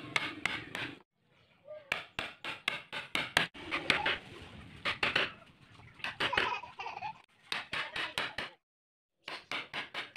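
A wood chisel being struck again and again as it chops waste out of a wooden joint: a run of sharp knocks, several a second, with a brief break near the end.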